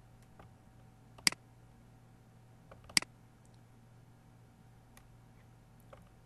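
Two sharp computer-mouse clicks about a second and a half apart, with a few faint ticks between them.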